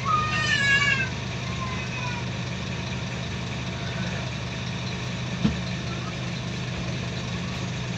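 Scania K230UB bus's five-cylinder diesel engine running with a steady low hum, heard from inside the passenger saloon. A passenger's voice sounds in the first second, and there is a single sharp knock about halfway through.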